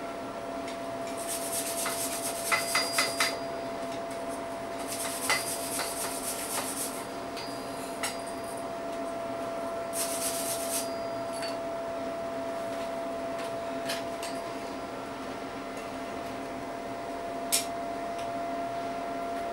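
Steel wire brush scrubbing forge scale off a hot forged steel bottle opener on an anvil, in three bursts of scraping, with light metal clinks between them. A steady hum runs underneath.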